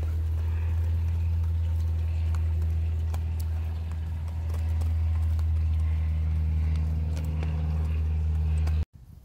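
Hens pecking feed pellets from a plastic dish, their beaks making scattered sharp clicks, over a loud, steady low hum that stops abruptly near the end.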